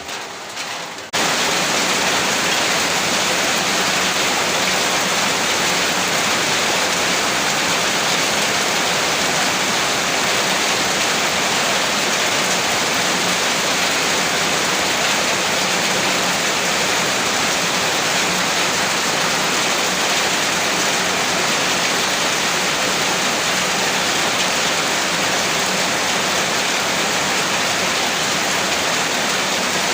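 Heavy rain falling in a steady, dense hiss, cutting in abruptly about a second in after a quieter stretch of a different sound.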